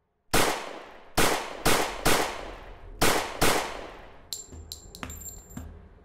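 Six revolver gunshots in uneven groups, each with a long echoing tail. Several light metallic clinks with a high ringing follow.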